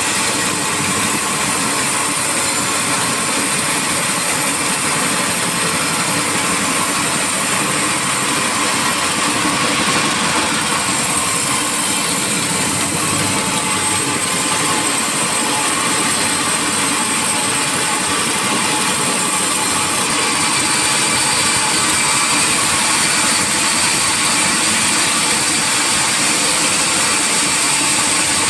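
Sawmill saw machinery running, a loud, steady mechanical noise with a strong high hiss; the sound shifts slightly about twenty seconds in.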